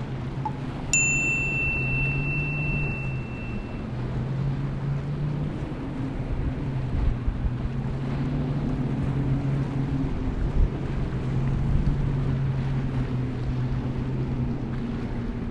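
Outboard engines of a cabin cruiser running at speed through choppy inlet water, a steady low drone over wind and water spray noise, with a few low thumps. About a second in, a bell-like ding chime rings out and fades over a few seconds.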